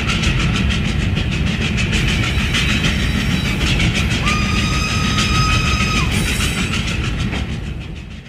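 Train passing, with a heavy low rumble and rapid regular clicking of wheels over the rail joints. About four seconds in, a steady high tone sounds for about two seconds, and the sound fades out near the end as the train moves away.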